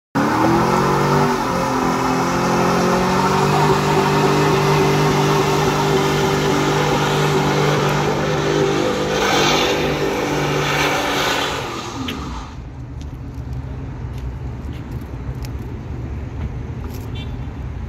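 Pickup truck engine revved up hard and held at high revs while its rear tyres spin and screech in a smoky burnout. About twelve seconds in the engine drops off, leaving a quieter rumble and wind noise.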